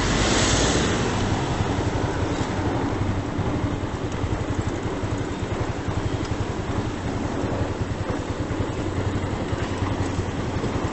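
Motor scooter's small engine running steadily, a low, fast pulsing over a hiss of street noise.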